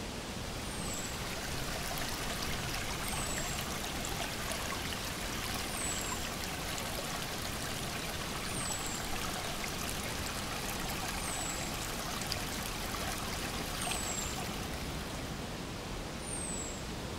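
Mountain creek running over rocks: a steady rush of water. A short, high falling chirp repeats about every two and a half seconds over it.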